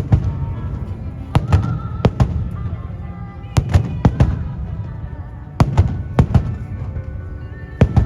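Aerial firework shells bursting with sharp booms, about a dozen in irregular clusters of two or three. Music plays between the bangs.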